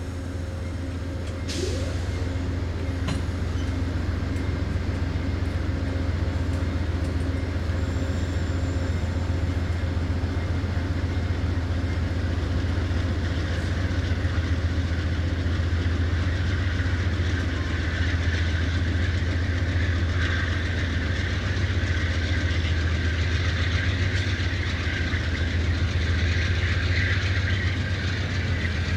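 Amtrak passenger coaches rolling past on the rails: a steady low rumble of wheels on track, growing a little louder and hissier in the second half.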